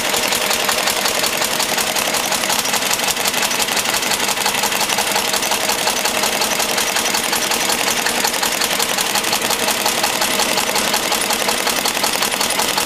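Lister-style slow-speed diesel engine of a generator set running steadily at about 650 RPM under a load of around 4 kW, with an even, rapid beat. It has no intake silencer and almost no exhaust silencing, so the running is loud.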